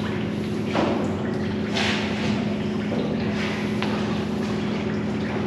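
A car wash foam brush scrubs soapy lather over a car's roof and body in several swishing strokes about a second apart, with running, dripping soapy water. A steady hum from the wash bay's pump runs under it.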